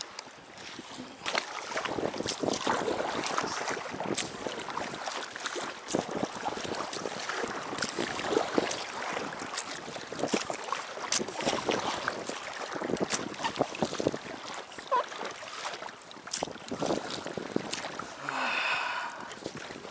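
Lake water sloshing and splashing against the side of an inflatable packraft under way, with many irregular small knocks and splashes. A short pitched sound comes near the end.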